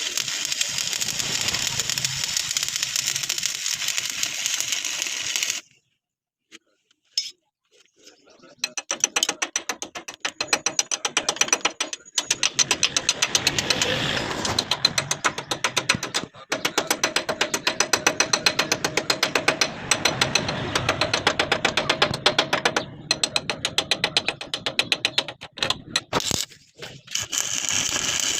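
Electric arc welding crackling steadily as a weld is run along a crack in a truck's steel underside. The arc stops for about three seconds a fifth of the way in, then strikes again, with a few brief breaks later.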